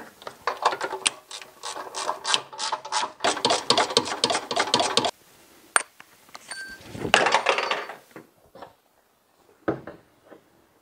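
Ratchet wrench clicking in two quick runs as the heat shield bolts over the exhaust manifold are tightened down, stopping about five seconds in. A short clatter follows about two seconds later.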